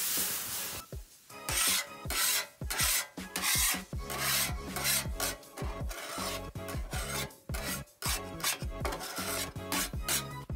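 Metal griddle scraper scraping the hot steel top of a Blackstone 22-inch griddle in repeated short strokes, working off mild surface rust. At the start, water splashed onto the hot plate hisses as it turns to steam.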